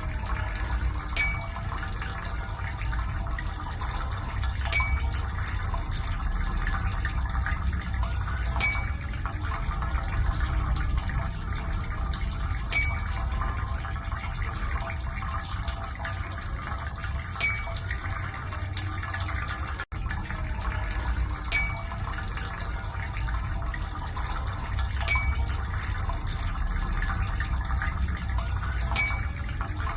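Water running and splashing over a steady low hum, with a short sharp high tick about every four seconds.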